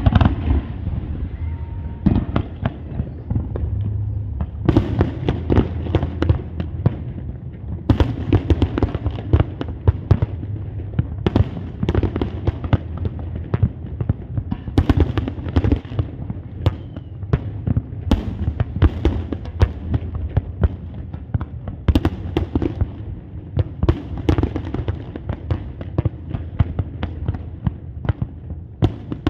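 Fireworks display: a dense barrage of sharp bangs and crackles in quick succession over a steady low rumble.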